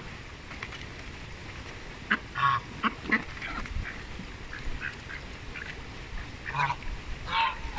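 Domestic brown Chinese geese giving a series of short honking calls, a cluster about two to three seconds in and more near the end.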